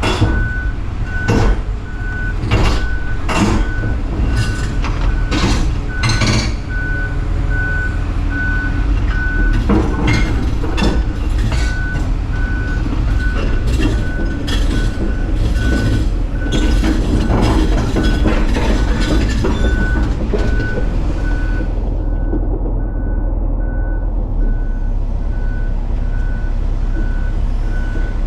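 Hitachi Zaxis 250 excavator on the move: diesel engine running under a travel alarm that beeps steadily. For the first twenty seconds or so, sharp metallic clanks from the machine come in irregularly, then they stop.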